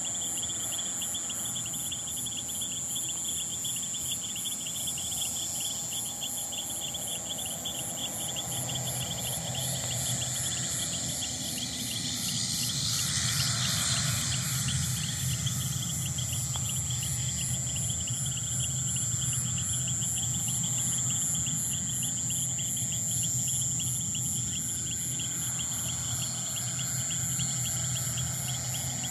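Insects chirping in steady, fast-pulsing trills at two high pitches over a constant high whine. A low steady hum comes in about nine seconds in and stays.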